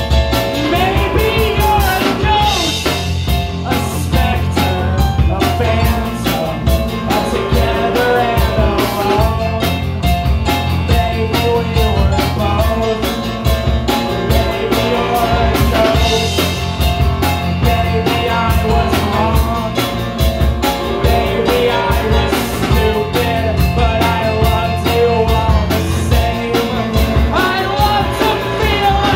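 Live rock band playing a song: a singer over keyboard, electric guitars and a drum kit, loud and continuous.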